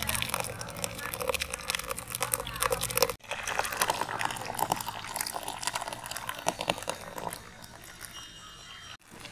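Blended grape pulp pressed by hand through a plastic mesh strainer, a wet crackling noise; after a cut about three seconds in, the strained juice pours in a stream into a glass bowl, dying down near the end.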